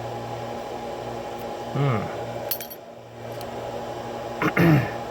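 A few sharp metallic clicks and clinks of small padlock cylinder parts being handled and dropped, over a steady electrical hum.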